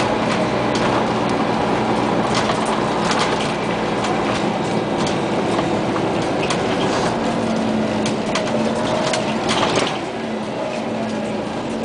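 Cabin sound of a 2001 Scania CN94UA OmniCity city bus under way: steady engine and road noise with rattling from the body and fittings. The engine tone strengthens about eight seconds in, and the sound drops a little about ten seconds in.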